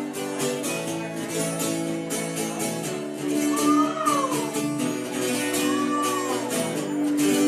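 Acoustic guitar strumming a steady rhythm as a song's intro, with two short rising-and-falling voice-like calls about halfway through.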